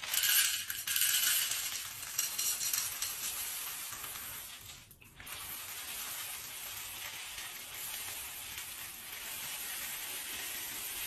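Dry cat kibble poured in a steady stream into a bowl and spilling onto a wooden floor: a continuous rattle of hard little pellets, with a short break in the pour about five seconds in.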